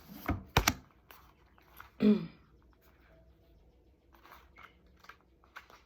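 Small handling noises in a quiet small room: a sharp tap about half a second in, a brief falling vocal sound from a person about two seconds in, then faint scattered clicks and rustles.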